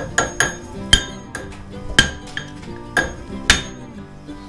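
A brass rod knocked against the steel hub at the top of a steering column, about eight sharp, ringing metal knocks at an uneven pace.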